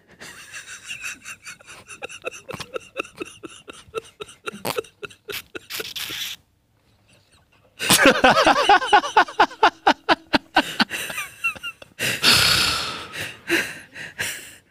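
A man laughing while trying to hold it back: quiet, rapid breathy giggles, a short pause, then louder bursts of laughter with gasps about eight seconds in and again near the end.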